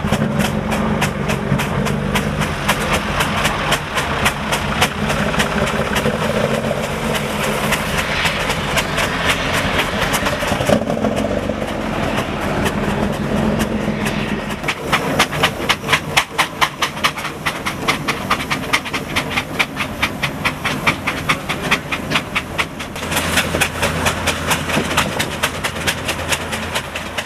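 Steam traction engines chuffing as they drive past, a quick, even train of exhaust beats with steam hiss. A steady low engine note runs underneath in the first half.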